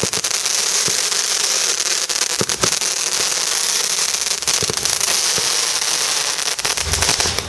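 A lit firework burning with a steady high hiss and dense rapid crackling, many sharp cracks layered over the hiss, which weakens at the end.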